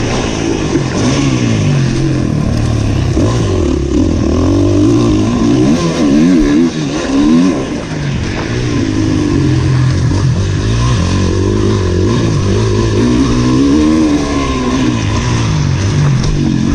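Motocross bike engine heard close up while it is ridden around a dirt track, its pitch rising and falling again and again with throttle and gear changes, over a steady rush of wind noise.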